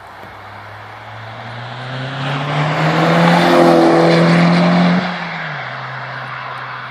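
Audi TTS with a Milltek non-resonated exhaust accelerating hard past, its turbocharged four-cylinder note rising in pitch and growing loud as it nears. About five seconds in the note drops off abruptly, and the engine is heard more quietly as the car pulls away.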